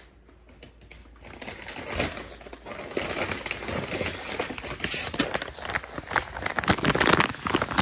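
Plastic dog-treat bags crinkling and rustling as they are handled, faint at first and busier from about three seconds in.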